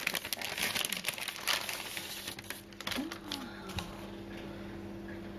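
Paper and plastic craft packaging rustling and crinkling as it is handled, with dense crackles through the first three seconds that then die away.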